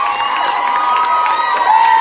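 Theatre audience cheering and screaming: many high, held voices overlap, with clapping underneath.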